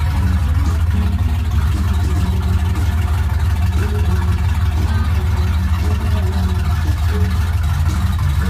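1950 Mercury's V8 engine idling steadily, with a deep, even low rumble.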